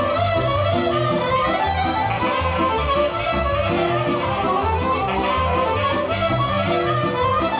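Live band playing a Romanian hora, instrumental dance music over a steady bass beat.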